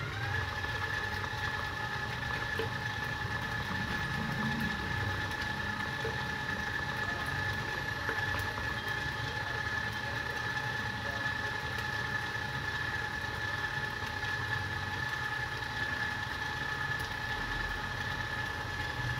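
Bowl-lift stand mixer running steadily at medium speed, a constant motor whine, beating creamed butter while beaten egg is added a little at a time.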